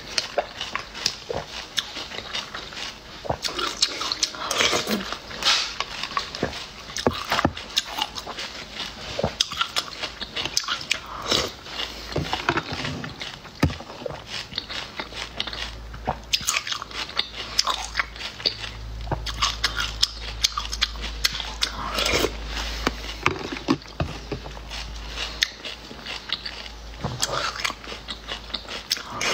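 Close-up eating of small snails in their shells: sucking the snails off a metal spoon and chewing, with frequent sharp clicks of shells and spoon against the jar.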